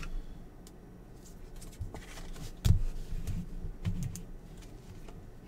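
Trading cards and pack wrappers handled on a tabletop: scattered light clicks and taps, with a sharper knock a little under three seconds in.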